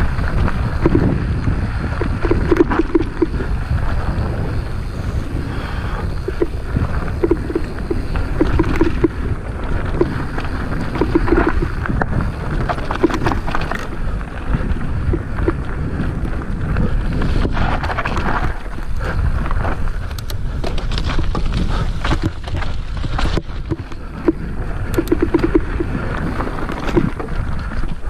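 Mountain bike ridden along a dirt forest singletrack: wind buffeting the camera microphone over tyre noise on dirt and dry leaves, with frequent rattles and knocks from the bike over rough ground.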